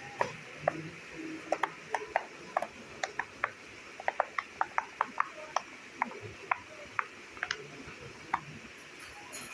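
Bubbles of a silicone pop-it fidget toy being pushed through with fingers, one after another: about two dozen short pops at an uneven pace, sometimes several in a second.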